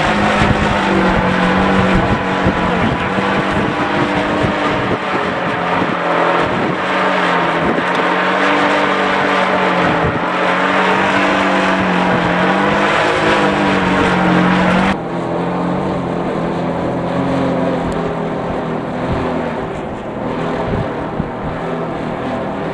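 A kite buzzing in a strong wind: a steady droning tone whose pitch wavers up and down, over rushing noise. About fifteen seconds in, the sound abruptly turns duller and a little quieter.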